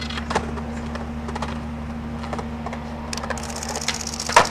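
Skateboard rolling on concrete, its wheels clicking over joints and rough spots a few times, then a loud sharp clack of the board near the end as the skater launches off the ledge. A steady low hum runs underneath.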